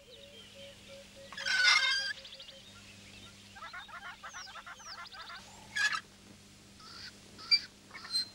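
Squawking, honking bird-like calls. There is one loud squawk about a second and a half in, a quick run of chattering around four to five seconds, then several short sharp squawks.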